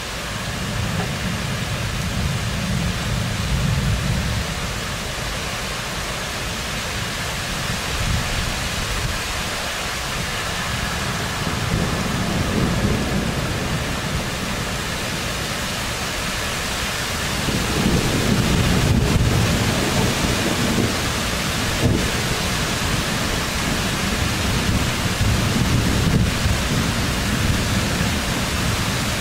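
Thunderstorm: rain falls steadily while thunder rolls low in several long swells, the loudest starting a little past halfway.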